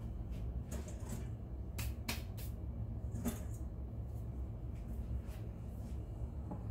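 A few light clicks and knocks as a glass mixing bowl and kitchen utensils are handled on a countertop, over a steady low hum.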